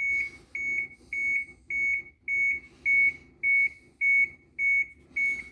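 Dashboard warning buzzer of a 1996 Blue Bird school bus beeping steadily at one high pitch, just under two beeps a second, with the key on.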